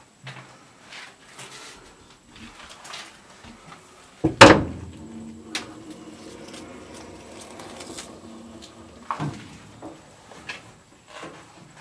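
Heavy steel door in an old EMD F7A locomotive being pushed open by hand: a loud metal clank about four seconds in, with ringing that fades over the next few seconds. Lighter knocks and footsteps come before it, and another knock follows about nine seconds in.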